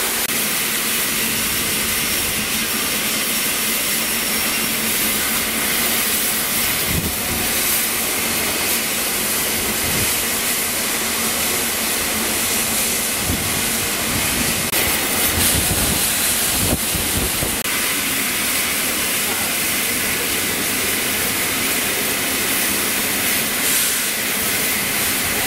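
Steam hissing steadily from the standing Peppercorn A1 Pacific steam locomotive 60163 Tornado, its safety valves blowing off. A few low thuds sound under the hiss in the middle.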